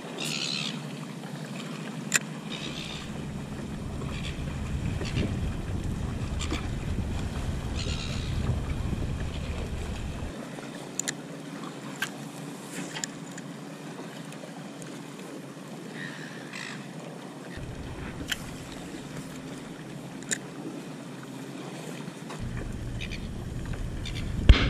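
Water sloshing around an inflatable paddleboard, with wind buffeting the microphone for several seconds early on and a few sharp clicks scattered through.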